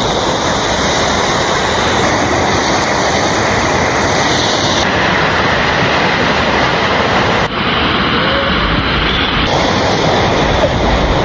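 Waterfall: steady rushing roar of falling water, loud and unbroken, its tone shifting abruptly a couple of times.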